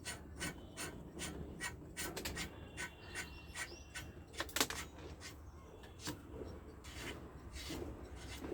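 Pliers working the threaded steering-head bearing race off a scooter's fork stem: a run of irregular metallic clicks and scrapes, several a second, with one sharper snap about halfway through.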